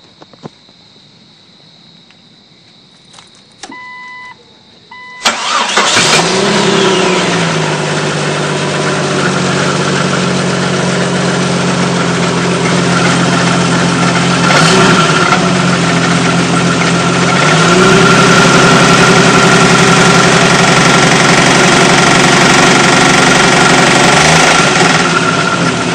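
A 1998 Jeep Cherokee XJ's engine starts after a brief warning chime: cranking catches about five seconds in and it settles into an idle. The engine speed rises about two-thirds of the way through and holds there for several seconds, with the terrible clicking noise the owner is asking about.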